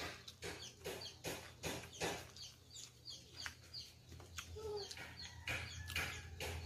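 Chickens clucking in a run of short notes, about two or three a second, over a faint steady hum.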